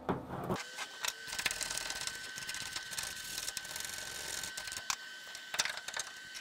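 Hand-held wire brush scrubbed back and forth over rusty sheet steel in a car's rear-window channel, a light scratchy rasping with many small ticks, cleaning rust and weld spatter off the metal.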